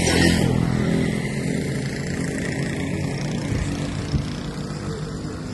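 Motor vehicle engine running, loudest in the first second and then slowly fading.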